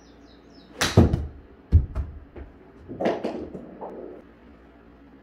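A golf club strikes a ball off a hitting mat with a sharp crack, and under a second later the ball thuds heavily into the simulator enclosure. Softer clatter and rustling follow a second or so after.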